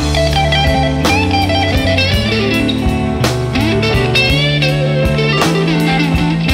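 Background music: a rock song with electric guitar playing bending, wavering notes over a steady drum beat.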